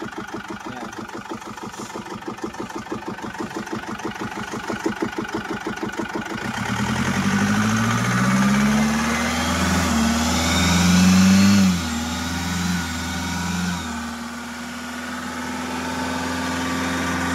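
Chevrolet Captiva diesel engine, recovering from lost compression. It runs with an even, rapid pulsing, then about six and a half seconds in picks up. Its revs rise and fall for several seconds before it settles into a steady idle.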